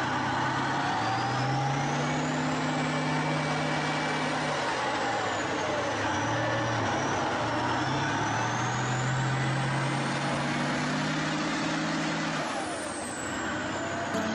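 Tank engine working hard under heavy load in deep mud, revs held high, dropping briefly about halfway and climbing again. A high whine rises and falls over the engine noise.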